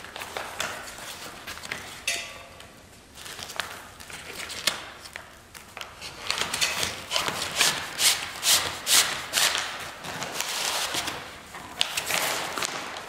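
Wooden dowel being worked into a sewn fabric sleeve in an ultralight's tail skin: cloth rustling and the dowel scraping as it slides, with a run of short sharp rustling strokes from about six to ten seconds in.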